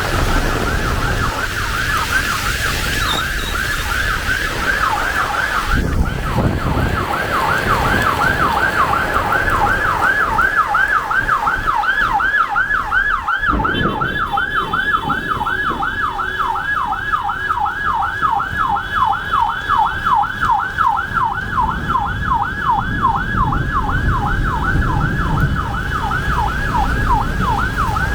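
Emergency vehicle siren in a fast yelp, its pitch sweeping up and down about three times a second, over a steady hiss of rain.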